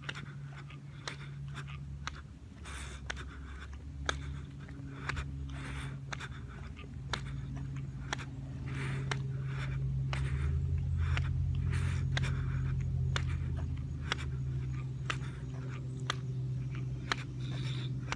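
A steady low motor hum, louder in the middle, with a light click about once a second and a soft hiss between the clicks.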